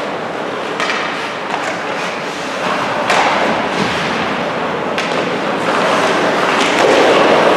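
Ice hockey game play in a rink: a steady wash of noise from the ice, broken by sharp knocks of sticks and puck about a second in, about three seconds in and about five seconds in.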